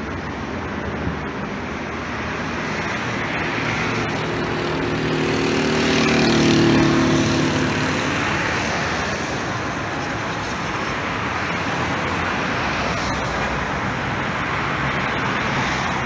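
Steady road traffic noise, with one vehicle's engine passing close and loudest about halfway through.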